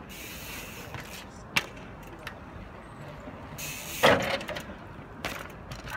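Mountain bike's tyres and frame knocking against a wooden bench during trials riding: a sharp knock about a second and a half in, a loud thud about four seconds in as the bike hops up onto the bench slats, and another knock a second later.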